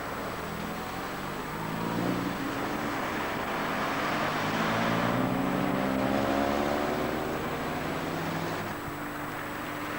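Cars passing close on the road, their engines accelerating so the pitch rises, loudest as one goes by in the middle, over steady traffic noise.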